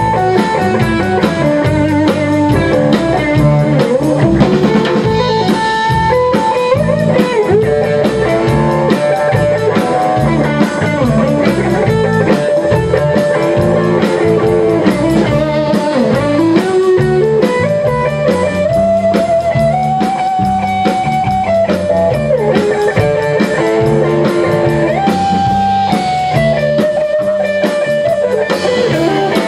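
A band playing an instrumental passage live: electric guitar carries a melodic lead with gliding, held notes over a steady drum-kit beat and upright bass, with no singing.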